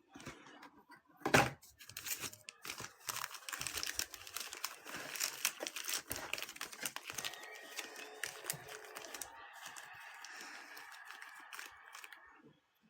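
Plastic wrapping on trading card packaging crinkling and tearing as it is opened by hand, with a sharp knock about a second in.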